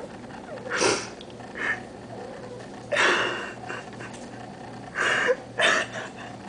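Domestic cat in heat making short breathy calls, five in about six seconds, the longest about three seconds in.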